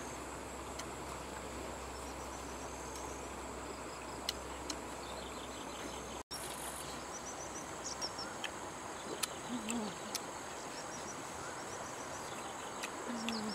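Insects chirring steadily in a high, thin drone, with scattered small clicks and a couple of short low hums in the second half.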